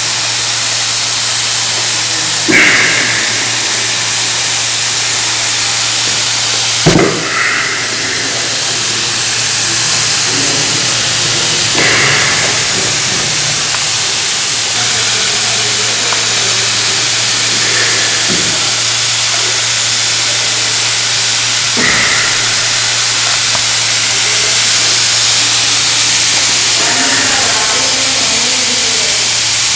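Steam hissing steadily from the vent of a pressure cooker with its whistle left off, boiling hard on a gas flame turned up high. Short louder sounds break in about every four to five seconds.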